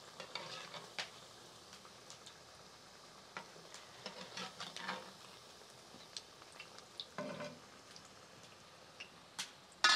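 Tuna and potato patties frying in hot oil in a clay pot, with a quiet sizzle. Now and then a fork and a spoon click and scrape against the pot as the patties are turned.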